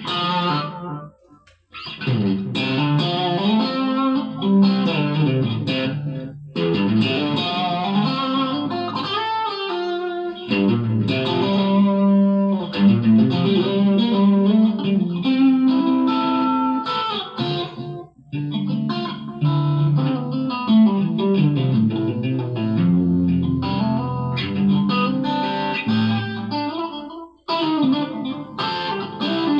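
Electric guitar playing a run of single notes and chords, with a few brief pauses between phrases.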